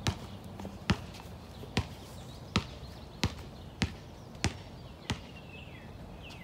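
A series of eight sharp knocks, roughly one every second, coming a little faster after the first few. Faint high falling chirps sound in the background.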